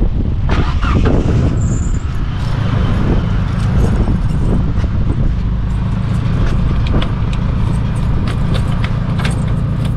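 Sandstorm wind buffeting the microphone: a loud, steady low rumble, with scattered sharp clicks and knocks that come more often in the second half.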